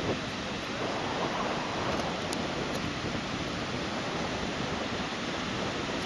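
Steady rush of ocean surf and wind on the beach, an even noise with no distinct events.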